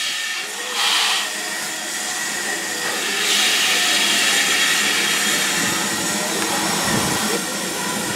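Ivatt Class 2MT steam locomotive 46447 and its coaches rolling slowly along the platform as the train draws to a halt, with steam hissing and growing louder about three seconds in.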